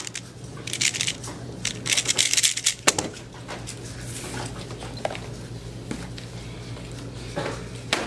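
A 3x3 speedcube turned very fast, a dense rattle of plastic clicks from its layers. It ends about three seconds in with one sharp knock as the solved cube is put down and the timer is stopped. Then only a few soft knocks over a steady room hum.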